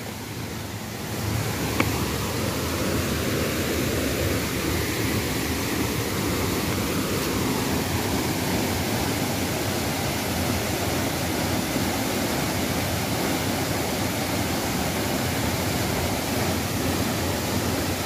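Steady rushing of a waterfall falling into its plunge pool, a constant hiss of falling water that swells slightly about a second and a half in.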